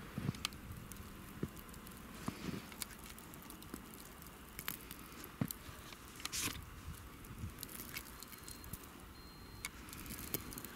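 Boots stepping through deep, loose snow, each foot sinking in; the steps come at an uneven pace.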